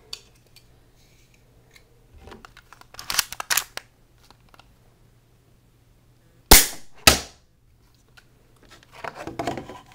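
Plastic Sig Sauer P226 airsoft pistol being handled with a few light plastic clicks, then two sharp loud cracks about half a second apart: the shot and the target box knocked over.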